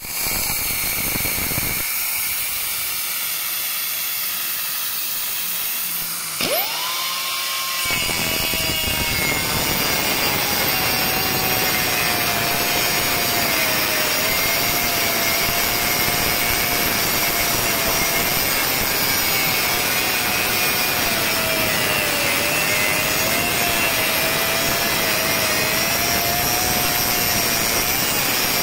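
Glomatek pneumatic circular saw with a diamond blade cutting granite. It opens with a few seconds of high hissing. About six seconds in, the air motor spins up with a quickly rising whine. From there the blade grinds steadily through the slab, with a whine that wavers slightly in pitch as it cuts.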